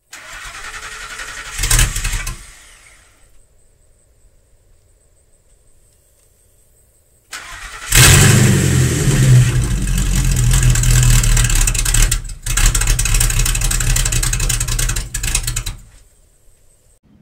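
Pickup truck engine cold-starting: a short first noise ending in a thump about two seconds in, then quiet. About seven seconds in the starter cranks briefly and the engine catches and runs loudly, with a short dip partway through, before it stops shortly before the end.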